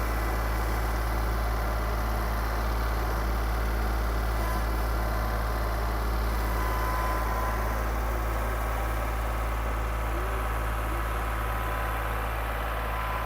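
Farm tractor engine running with a steady low hum, working to pull a shelter that is frozen to the ground free.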